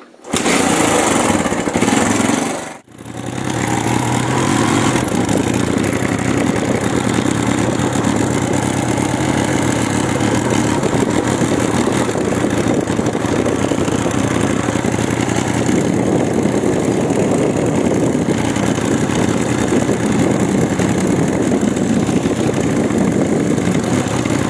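Old motorcycle engine running steadily as the bike is ridden, with a loud rushing noise over it. The sound cuts out for a moment about three seconds in.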